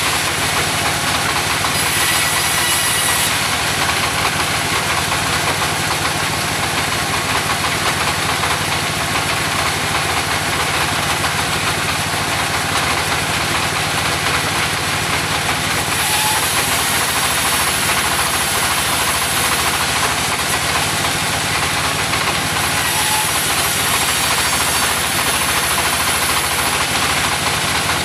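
Mobile sawmill running steadily, its engine humming under the dense hiss of the saw cutting through mahogany timber.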